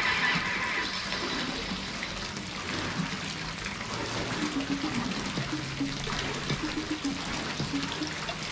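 Pool water splashing and trickling around a swimmer, an even watery hiss, with faint low musical notes coming in underneath a few seconds in.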